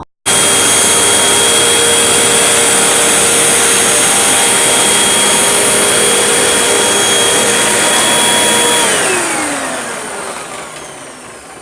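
Hoover WindTunnel 2 HC Pet upright vacuum running steadily with a high motor whine. About nine seconds in, its pitch slides down and the sound fades as the motor winds down.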